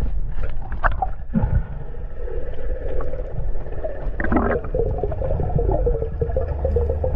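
Muffled water noise picked up by a diving camera in the sea: a steady low rumble with gurgling and wavering tones.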